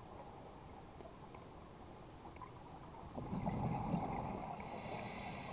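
A scuba diver breathing underwater: a low, bubbly rumble of exhaled air from the regulator about three seconds in, then a thin high whistle near the end, over faint underwater hiss.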